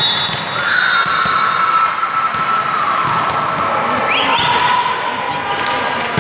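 Echoing gymnasium ambience at a volleyball match: balls thudding on the hardwood floor and voices from players and spectators. A long, high, steady tone sounds through the first few seconds and shifts slightly lower about four seconds in, with a short rising squeal around the same moment.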